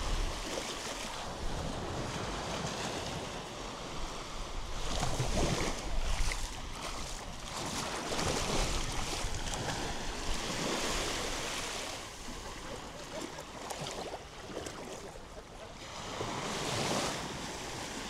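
Small waves breaking and washing up onto a sandy beach, the surf swelling and fading every few seconds.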